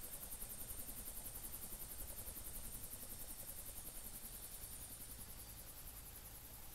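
Helicopter rotor beating in a steady rapid pulse, several beats a second, with a thin high whine above it, as the helicopter lifts off and climbs away, slowly fading.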